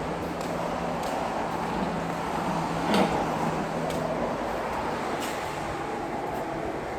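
Car engine idling with the air conditioning running: a steady hum, with a single click about three seconds in.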